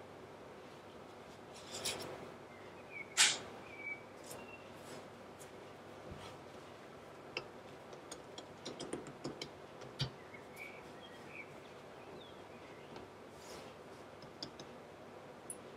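Quiet handling of scone dough and a round plastic cutter on a floured worktop and baking tray: scattered soft taps and clicks, the sharpest about three seconds in and a cluster of small taps around nine to ten seconds.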